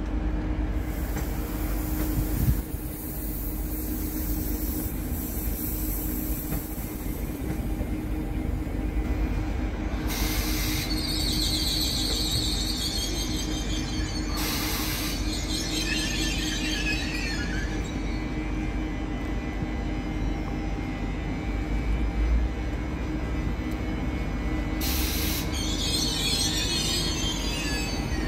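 Ouigo TGV Duplex high-speed train creeping into the platform, its power car giving a steady hum. High-pitched wheel squeals break in about ten seconds in, again around fifteen seconds, and near the end.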